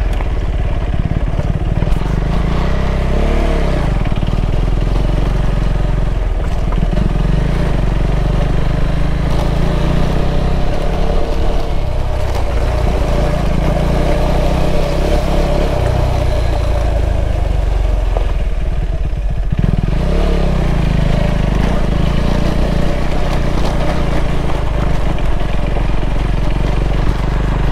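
KTM 390 Adventure's single-cylinder engine running under way, its note rising and falling with the throttle, with clear revs about three seconds in and again around twenty seconds in.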